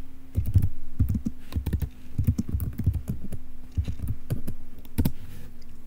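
Typing on a computer keyboard: a run of irregular keystroke clicks as a short shell command is typed, over a faint steady hum.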